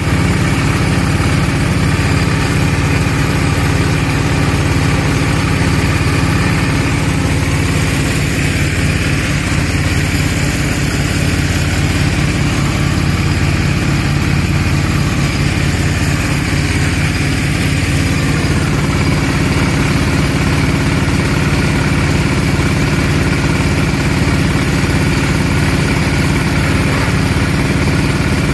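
Engines of a small water-well drilling rig running steadily at a fast idle: a loud, even engine sound with a low throb that pulses unevenly.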